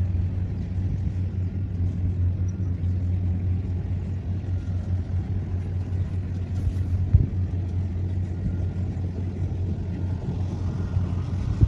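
Heavy farm machinery engine running at a steady low drone, with a single knock about seven seconds in.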